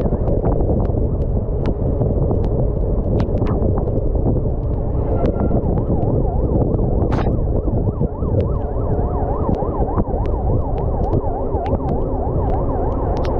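Wind and road noise from a mountain bike riding fast in a group on wet asphalt, heard on a bike-mounted camera's microphone, with scattered sharp clicks. From about eight seconds in, a siren rises and falls quickly beneath it, about three cycles a second.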